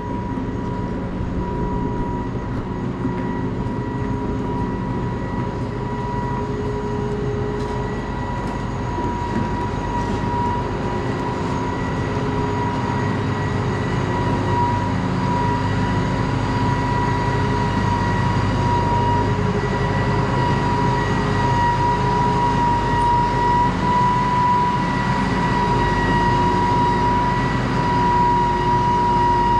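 John Deere 4830 self-propelled sprayer running: a steady diesel engine drone with a high, even whine over it, growing slightly louder toward the end.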